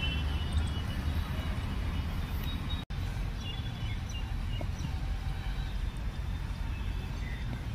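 Steady low outdoor background noise, with a few faint high chirps. It drops out abruptly for an instant about three seconds in.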